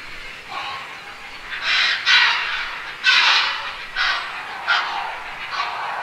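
Heron giving a series of harsh, rasping calls, about one a second.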